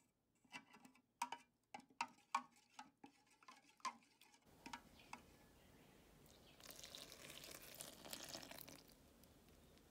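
A small spoon clinking against a plastic measuring cup, about a dozen light irregular clicks, as yeast is stirred into lukewarm water. Later, a soft pouring hiss for about two seconds as the yeast water is poured onto flour in a stainless steel bowl.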